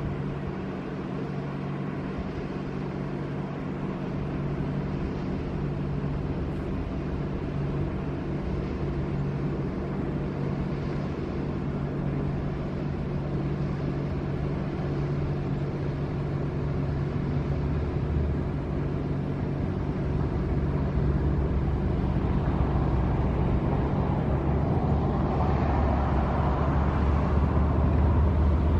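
An engine running steadily with a low droning hum, while a deeper rumble slowly builds and grows louder toward the end.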